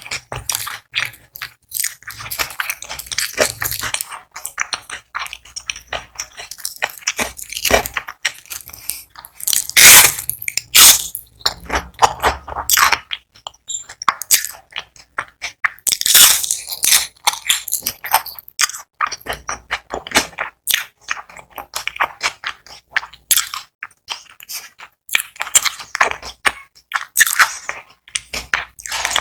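Close-miked crunching and chewing of crispy fried onion rings, with repeated sharp bites and rapid crackling crunches as the batter breaks.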